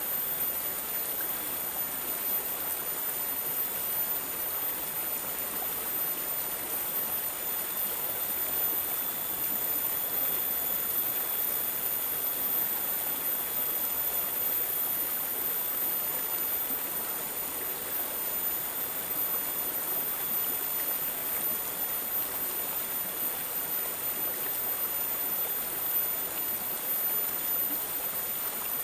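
Running water babbling and trickling steadily, without a break.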